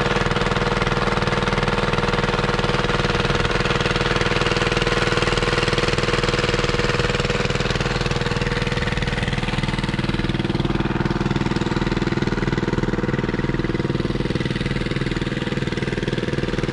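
Small walk-behind road roller's engine running steadily at idle, fading a little in the second half.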